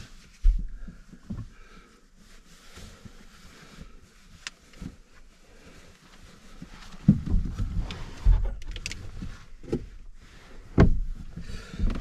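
Fabric rustling and handling as a person shifts clothing and bedding inside a truck-bed camper, broken by several dull thumps: one about half a second in, a cluster around seven to eight seconds, and one near the end.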